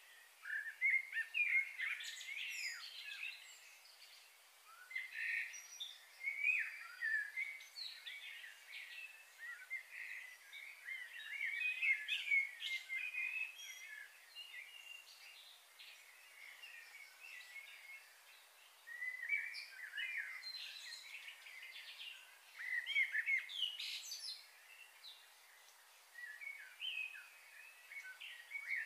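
Birds chirping and calling in overlapping bursts of short, high chirps, with a lull about halfway through.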